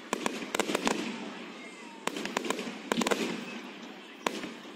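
Aerial fireworks display: several volleys of sharp bangs and crackles about a second apart, with a noisy wash that fades between volleys.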